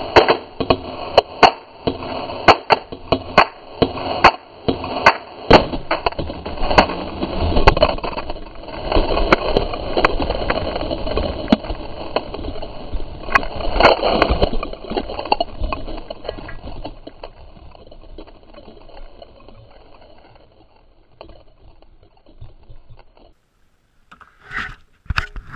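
Rifle gunfire, about two sharp shots a second for the first several seconds. Then a dense rushing, churning noise, typical of water flooding into the shot-up boat as it goes under, fades away over several seconds. A few knocks come near the end.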